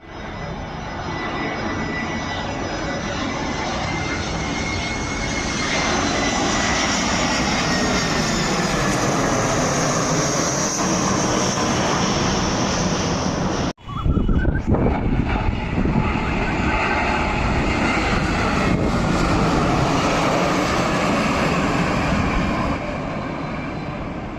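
Jet airliner on landing approach, engines roaring with a high whine as it passes close, growing louder over the first few seconds. About fourteen seconds in the sound cuts off abruptly and a second landing airliner's engine roar takes over.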